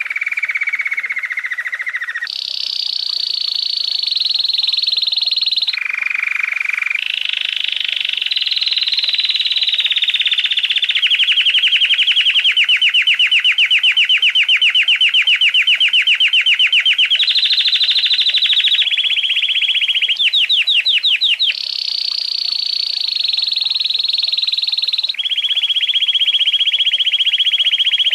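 Domestic canary singing a long, unbroken song of rapid trills. Each trill holds at one pitch for a second or a few, then jumps higher or lower, with a slower run of separate rising notes about two-thirds of the way through.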